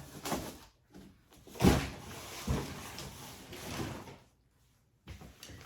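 A sharp thump, then a few seconds of rustling and handling as a new microfiber comforter is pulled about out of its packaging.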